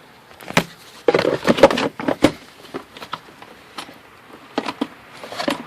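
Engine air filter being slid into its plastic air box: scattered plastic clicks and knocks, with a louder stretch of rubbing and knocking about a second in.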